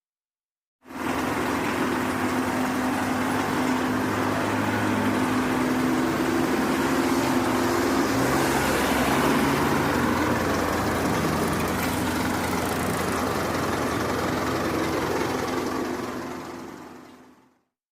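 Heavy work-vehicle engine running steadily. It fades in about a second in and fades out near the end.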